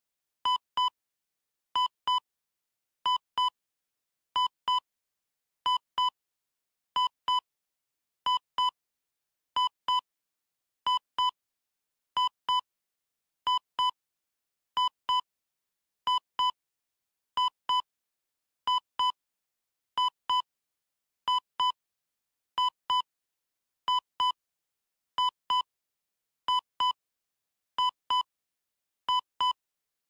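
Heart monitor beeping: pairs of short, identical electronic beeps, one pair about every 1.3 seconds, with silence between them.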